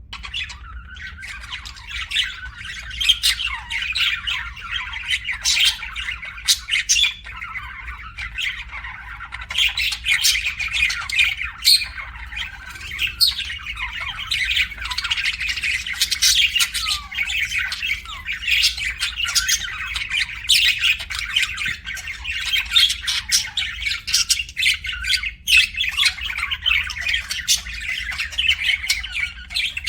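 Budgerigars chattering: a continuous warble full of sharp chirps and squawks, starting about half a second in.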